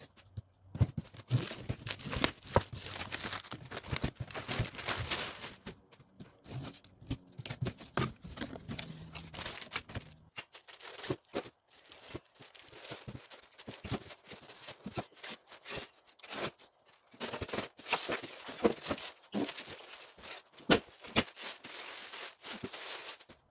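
Cardboard shipping box and packing being handled: flaps pushed open, white foam inserts pulled and scraped out, and plastic wrap crinkling, an uneven run of rustles, tears and knocks with a couple of short pauses.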